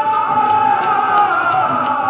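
Live Haryanvi ragni folk singing: a male voice holds long, wavering high notes over the accompaniment, with sharp drum strokes keeping a beat.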